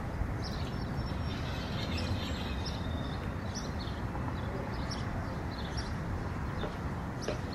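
Egg yolk and flour tipped into a plastic mixing bowl and stirred with a spoon: soft scattered scrapes and small taps over a steady low background rumble.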